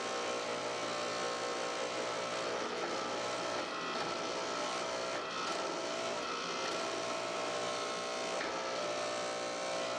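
Forging press running with a steady electric buzzing hum while its ram slowly drives a drift through the eye of a hot axe head.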